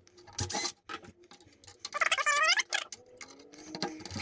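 Cordless drill running in short bursts, its bit boring holes through the plastic of a milk crate, with light clicking and rattling of the plastic crate being handled.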